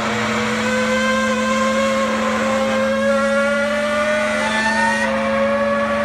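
Hydraulic horizontal baler running: a steady low hum with a whine over it that slowly rises in pitch, and further whining tones joining near the end.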